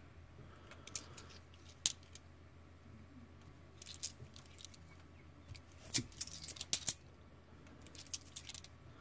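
Australian 20-cent cupronickel coins clicking and clinking against each other as they are handled and sorted one at a time. Scattered sharp clicks, bunched into quick runs around the middle and near the end, over a faint steady low hum.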